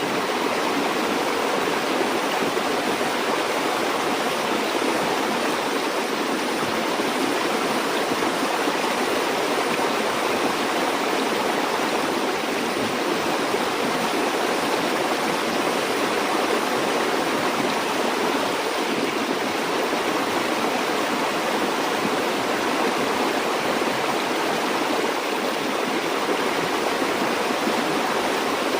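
River or stream water flowing over stones, a steady, even rushing and babbling.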